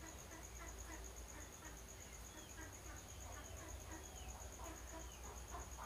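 Faint background of crickets trilling steadily over a low hum, with a few soft ticks and chirps.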